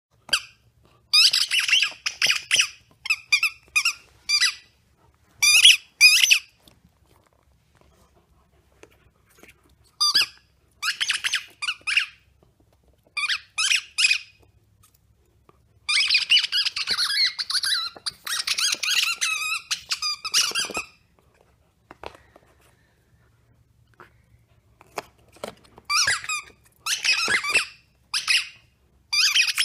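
Husky puppy chewing a squeaker toy, setting it squeaking very fast in runs of many squeaks, with pauses of a few seconds between runs.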